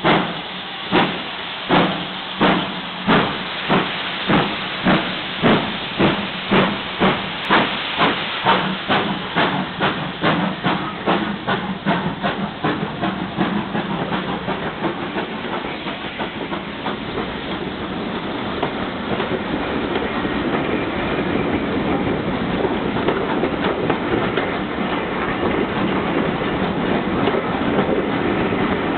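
Steam locomotive pulling away from the station: its exhaust chuffs start about a second apart and quicken steadily. After about twelve seconds they merge into a continuous rumble and clatter of the coaches rolling past on the rails, growing louder toward the end.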